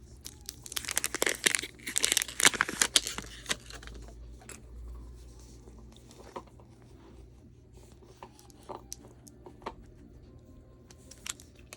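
Plastic wrapper on a Mini Brands toy capsule being torn and crinkled, a dense crackling run in the first few seconds, then scattered light clicks and rustles of handling.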